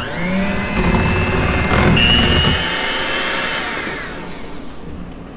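Electric hand mixer beating butter with white and brown sugar in a glass bowl. It spins up right at the start, runs steadily, then winds down about four seconds in.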